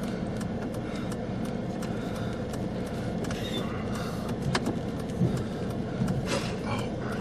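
Steady low rumble and hiss inside a stopped car, with a few light clicks and knocks.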